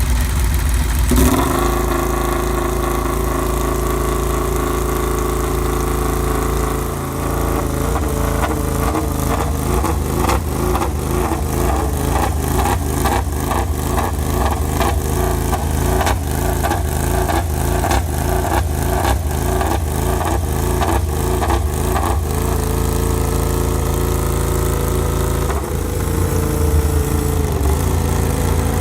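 A MotoGP racing motorcycle engine running at idle after being started, a loud steady engine note. Through the middle stretch it has an even, rhythmic pulsing.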